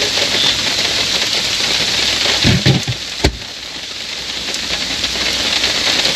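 Steady rain falling, with a few dull thumps and one sharp knock a little before halfway through.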